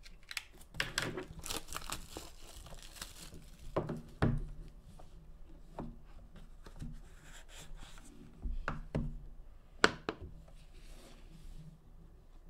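Packaging of a sealed trading-card box being torn open and crinkled by hand, with a few knocks and taps as the box is handled.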